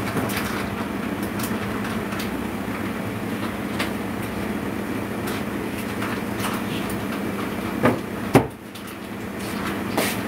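Steady machine hum of kitchen equipment with scattered light clicks and knocks of handling. About eight seconds in come two sharp knocks, the second the loudest, and the hum dips for a moment after it.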